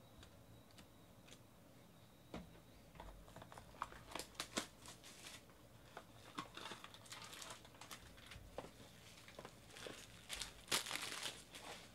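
Clear plastic wrapper and a foil trading-card pack crinkling as they are handled, with scattered small clicks. It comes in irregular bursts starting about two seconds in, and the loudest crinkle comes near the end.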